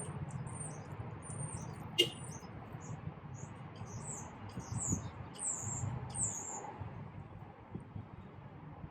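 High, thin bird chirps repeated in quick series, the later ones longer and sliding downward, with one sharp click about two seconds in.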